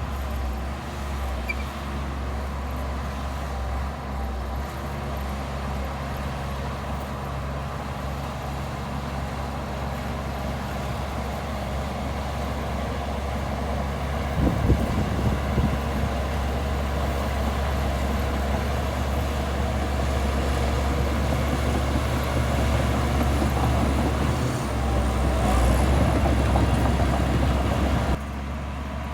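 Heavy diesel earthmoving machinery running steadily, growing louder over the second half, with a few knocks about halfway through. The sound drops abruptly shortly before the end.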